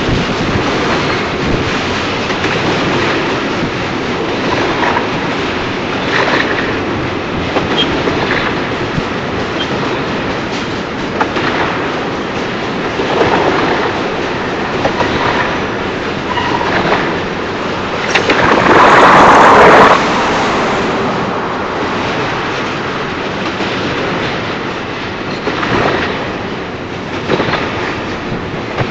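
Double-stack container cars of a freight train rolling past: a steady rumble of steel wheels on rail with repeated clicks. About two-thirds of the way through, a louder rushing noise swells for about two seconds.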